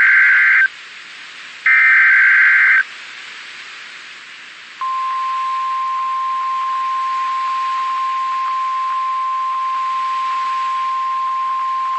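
NOAA Weather Radio Emergency Alert System activation: two roughly one-second bursts of SAME header data, the last of the header's repeats, then, after a short pause, the single steady warning alarm tone beginning about five seconds in. Faint radio hiss fills the gaps between the bursts.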